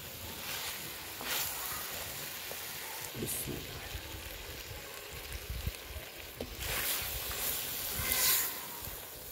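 Spiced green beans and potatoes sizzling in a clay pot as a wooden spatula stirs and scrapes them, with louder bursts of hissing about a second in and again from about seven seconds in.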